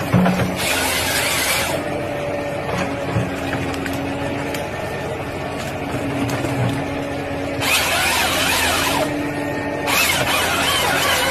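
Forestry harvester running with a steady engine and hydraulic hum, with three harsh bursts of noise, one about half a second in lasting about a second, then two in quick succession near the end, as its felling head works on a tree trunk.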